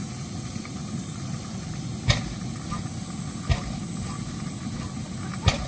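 Lanz single-cylinder hot-bulb engine firing three isolated sharp bangs over a steady low engine rumble, one about two seconds in, another near halfway and a last near the end: it is failing to catch and run.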